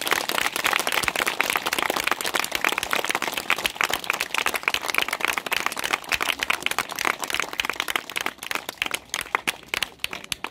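Crowd applauding: dense, steady clapping that thins into scattered claps near the end.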